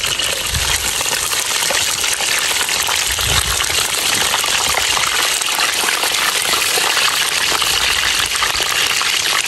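Chicken wings deep-frying in a wok of hot oil: a steady, loud sizzle while the wings are lifted out with a wire strainer.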